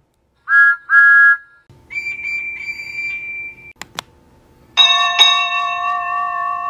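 Train-whistle sound effects: two short toots, then a longer, higher steady whistle in three pulses, followed by two sharp clicks and, about five seconds in, a loud sustained ringing chord of several tones.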